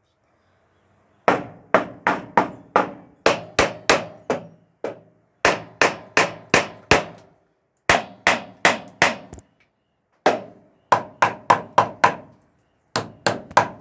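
Hammer driving nails into cedar wood: runs of five to ten sharp blows at about three a second, each with a short ring, separated by pauses of about a second.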